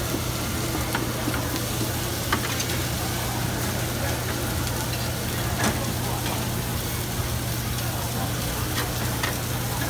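Steaks and chicken sizzling on a hot flat-top griddle, with a few sharp clicks and scrapes of a metal spatula against the plate, over a steady low hum.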